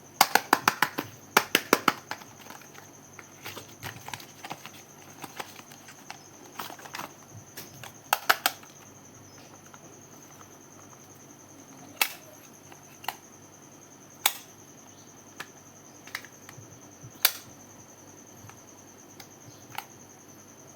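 Makeup packaging being tapped and clicked for ASMR: quick runs of sharp taps in the first two seconds and again about eight seconds in, then single clicks a second or more apart.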